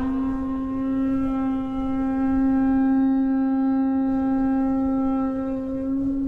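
A single long held note from the drama's background score, a horn-like tone that slides up slightly as it starts and then holds steady and loud.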